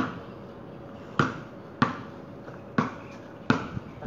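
Basketball bouncing on a concrete street as it is dribbled: about six sharp thuds at an uneven pace, the last one softer.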